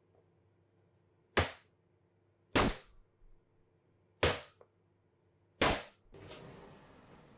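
Metal sheet pan of sponge-cake batter knocked against the counter four times, sharp bangs with a short ring, spaced about a second and a half apart, to knock air bubbles out of the batter. Near the end a steady hiss begins.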